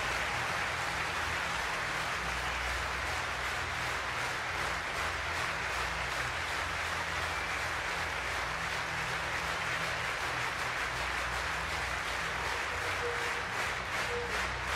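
A large arena crowd applauding, a dense steady wash of clapping; separate claps stand out more clearly near the end.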